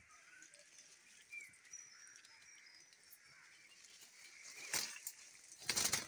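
Faint bird chirps in the trees, then two short rustling bursts near the end, the second louder and longer.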